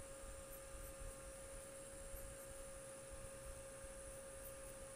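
Faint steady electrical hum with a constant mid-pitched tone over a light hiss: room tone, with no clear pencil strokes.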